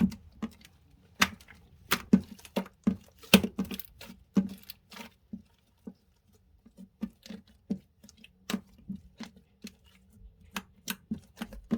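Homemade slime being squeezed and pressed by hand, giving irregular sharp clicks and pops as air pockets burst, with a short lull about halfway through.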